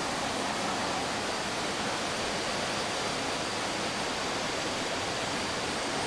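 Steady rush of flowing water from a jungle waterfall, an even, unbroken noise with nothing else standing out.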